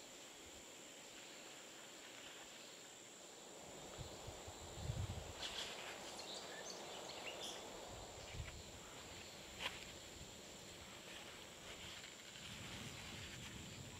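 Faint rustling and crinkling of large fresh leaves and jute twine as hands wrap and tie a leaf parcel, with a few soft knocks and light clicks.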